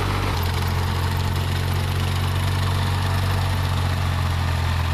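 Tractor engine running steadily with a deep, even hum as it pulls a Ford 501 sickle bar mower cutting tall grass; the note shifts slightly about a third of a second in.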